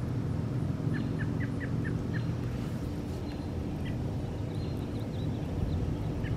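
Small songbirds chirping in short runs of quick notes over a steady low rumble.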